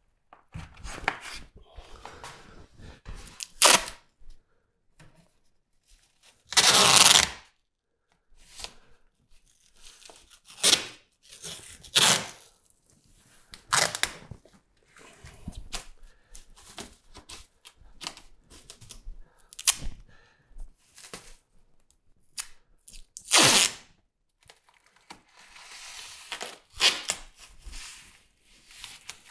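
Painter's tape pulled off the roll and torn, and masking paper rustling and being rubbed flat over a cabinet top, in scattered short bursts. The loudest rips come about 7 s in and again near 23 s.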